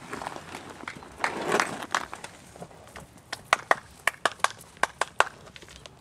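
An Arabian mare's hooves striking dry dirt as she runs: uneven hoof beats, with a noisy rush about a second in and a quick run of sharp strikes in the second half.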